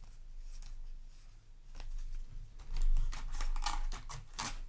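Yu-Gi-Oh! trading cards being handled, slid and flipped against one another, with a light knock about three seconds in and a run of short clicks and snaps near the end.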